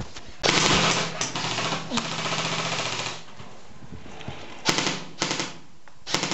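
Airsoft rifle firing on full auto: one long burst of nearly three seconds, then a few short bursts near the end.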